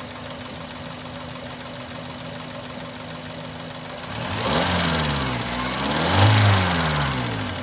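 Four-cylinder car engine idling steadily, then revved twice by hand from about four seconds in. Each rev rises in pitch and falls back toward idle, and the second rev is the louder.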